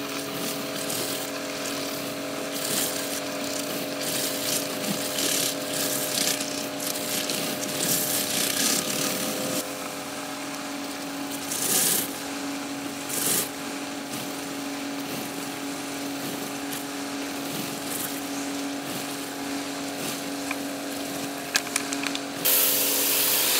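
Kärcher K5 pressure washer running steadily with a humming pump motor, while water sprays with a hiss inside a rotary patio surface-cleaner attachment pushed over stone paving slabs. The hiss swells briefly a couple of times midway and grows louder near the end.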